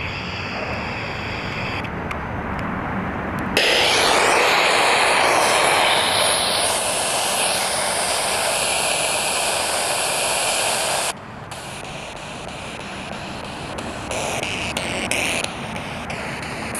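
Spirit box sweeping the radio band, giving a steady hiss of static that jumps abruptly in level and tone every few seconds, loudest from about four to eleven seconds in, over wind on the microphone.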